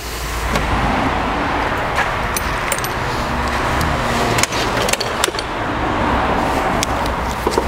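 Impact wrench hammering steadily on a bolt to undo it, a continuous metallic rattle with a few sharp clicks.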